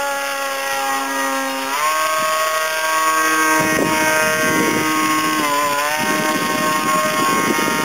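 A homemade foam RC plane's propeller motor buzzing overhead as a steady pitched drone. It rises in pitch about two seconds in as the throttle opens, and dips briefly near six seconds. A rough rushing noise joins underneath from about halfway.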